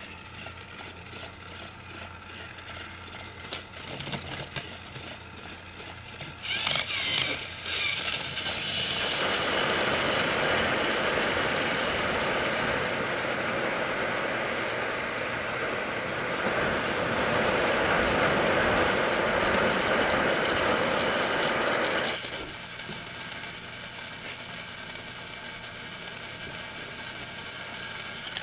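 Battery-powered Trackmaster toy train motors whirring steadily as the engines run along plastic track. The whir grows louder about a quarter of the way in, with a few brief clattering knocks, and drops back down about three quarters through.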